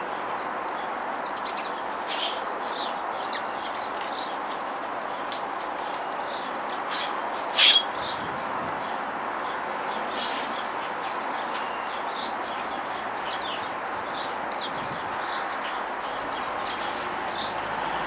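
Small songbirds chirping, many short high notes scattered throughout over a steady background hiss, with one louder chirp about seven and a half seconds in.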